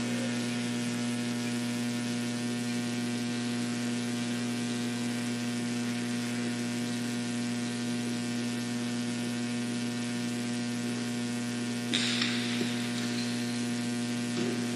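Steady electrical mains hum with a buzz of many overtones over a faint hiss. About twelve seconds in, a brief rush of noise lasts about a second.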